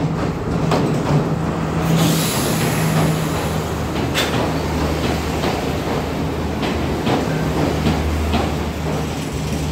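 A Class S14 diesel multiple unit pulls into the station past the platform. A steady engine hum runs under the rumble of the coaches and repeated clacks of wheels over rail joints about every half second. A hiss starts about two seconds in.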